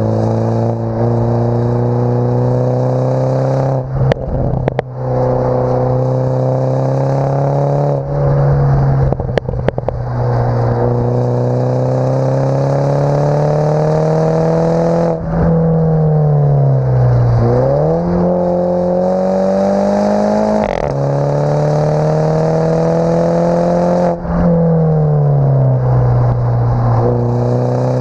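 Mini Cooper S (F56) 2.0-litre turbocharged four-cylinder heard at the tailpipes of an Invidia Q300 cat-back exhaust under hard acceleration, sound muffled by the camera's waterproof case. The revs climb steadily in each gear and drop at each upshift, with short crackles around some of the shifts. Midway the engine note falls away for a couple of seconds as the car slows, then climbs again.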